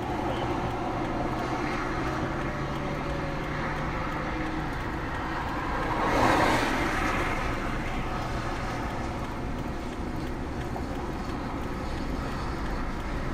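Steady rush of road traffic, with a car passing close by about six seconds in, its sound swelling and then fading away.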